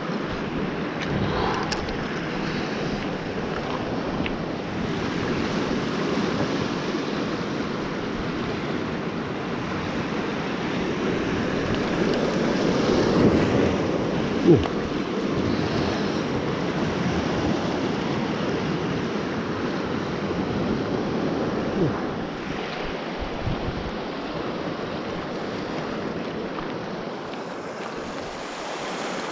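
Small waves washing and breaking over a rock shelf: a steady rush of surf that swells about halfway through, with wind on the microphone. A couple of brief knocks stand out, about halfway through and again later.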